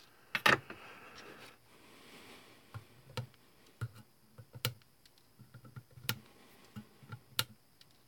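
Sharp clicks and light taps of hand tools and small parts handled at an electronics soldering bench, about five louder clicks spaced a second or more apart among smaller ticks.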